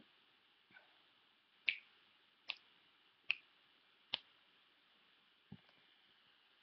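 Four faint finger snaps, evenly spaced about 0.8 s apart, counting in a tempo before singing, followed by a soft thump.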